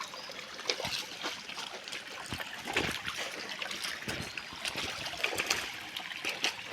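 River water trickling and splashing over rocks in a shallow stream, with many small irregular splashes.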